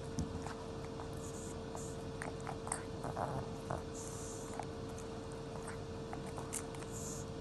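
A dog chewing a treat: scattered small clicks and crackles, busiest in the middle, over a steady hum.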